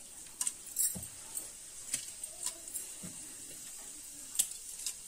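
Scattered light clinks and taps of spice containers and utensils as whole spices are dropped into hot oil for tempering, over a faint steady hiss of the oil sizzling.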